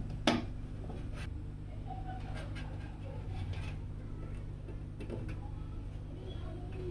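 PC parts being handled while a computer is assembled in a case: one sharp click about a third of a second in, then faint clicks and taps over a steady low hum.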